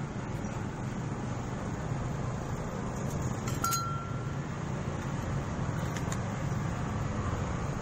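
One sharp metallic clink that rings for about half a second, about three and a half seconds in, as a round metal engine part is set down on the concrete floor. A fainter tap comes near six seconds, over a steady low background hum.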